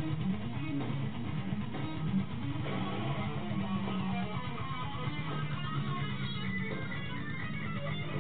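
Music led by electric guitar, playing continuously with sustained low notes underneath.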